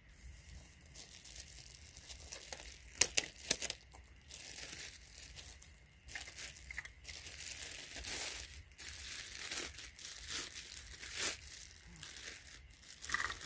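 Plastic packaging crinkling and rustling as it is unwrapped and handled, with two sharp crackles about three seconds in.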